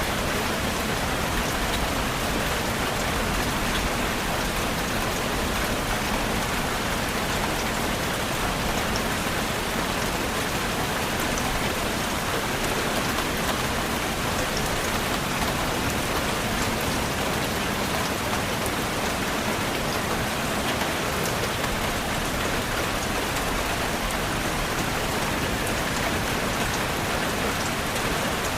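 Steady rain falling on a surface, an even hiss with scattered individual drop ticks and no change in intensity.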